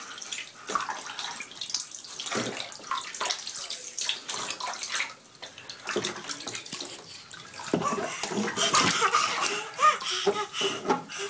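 Bath water splashing and sloshing irregularly in a baby bathtub as an infant is washed with a washcloth.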